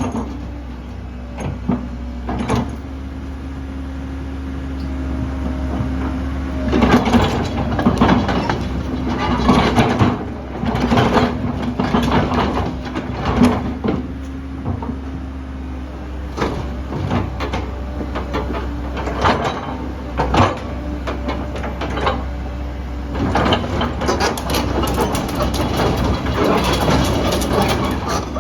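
Komatsu PC130-7 excavator's diesel engine running steadily while it works its hydraulics, with a steady hum underneath and repeated metallic clanks and knocks throughout. A held whine fades out about halfway through.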